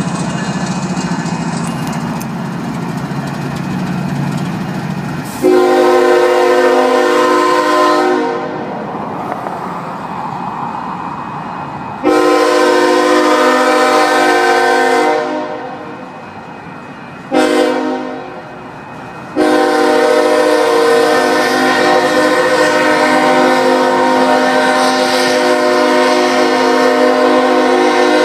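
Freight train of tank cars rumbling across a steel truss bridge. About five seconds in, the locomotive's multi-tone air horn begins sounding two long blasts, one short and one long final blast, the standard grade-crossing signal.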